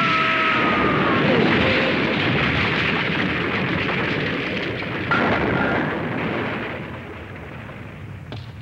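Animated-film explosion sound effect: a loud, noisy blast roar that holds for several seconds, jumps again about five seconds in, then dies away. A faint high tone fades out in the first second.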